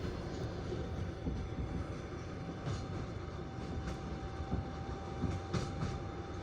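Passenger train running, heard from inside the carriage: a steady rumble of wheels on rail with a few clacks of the wheels over rail joints, and a faint steady high tone through most of it.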